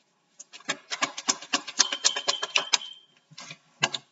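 A quick, irregular run of clicks and taps, several a second, with a thin high tone for about a second in the middle and two more clicks near the end.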